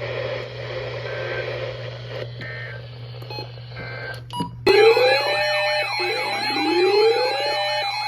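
A steady hum and hiss from the broadcast feed. About four and a half seconds in, a loud layered alert sound starts suddenly: a steady attention tone, repeated rising siren wails, and fast warbling tones together.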